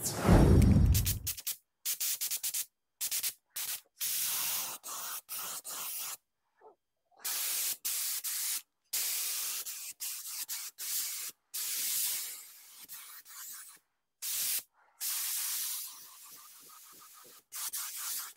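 Compressed-air paint spray gun hissing in repeated bursts as the trigger is pulled and released, laying primer with the air pressure and paint flow set a little too high. The loudest moment is a low rumble in the first second.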